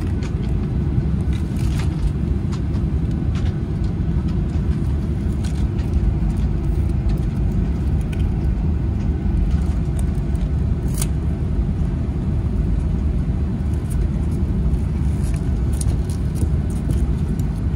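Cabin noise inside a Skymark Airlines Boeing 737-800 as it taxis: a steady low rumble from the jet engines and the rolling airframe, holding an even level with no build-up of thrust.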